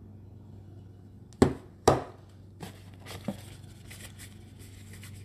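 Items being handled in a cardboard box: two sharp knocks about a second and a half in, then a few lighter clicks and a soft rustle of tissue paper.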